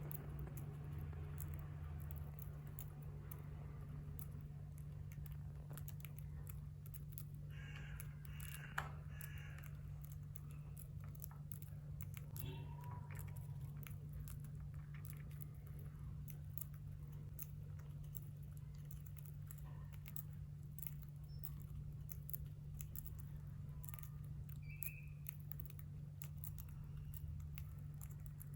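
Lovebirds cracking and eating seeds: a rapid scatter of small, sharp clicks and crunches, with a few brief chirps, over a steady low hum.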